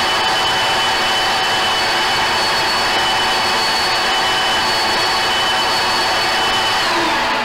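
Cordless drill running steadily under load as it bores into the car's steel front frame rail, drilling out a spot weld, with a high motor whine. Near the end the whine drops as the drill winds down and stops.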